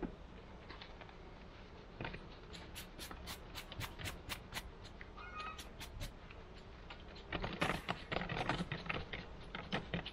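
Wooden hive frames being pried loose and lifted out of a beehive with a metal hive tool: a quick run of sharp clicks and creaks, a short squeak, then a denser burst of scraping and cracking near the end.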